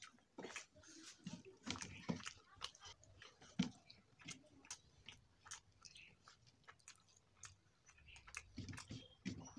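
A person chewing a mouthful of rice and curry close to the microphone: a string of irregular short clicks and mouth noises, with fingers mixing rice on a steel plate.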